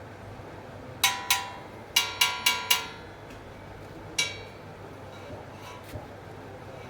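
Metal striking hollow steel pipe, seven ringing clanks: two about a second in, four in quick succession a second later, and one more near the middle.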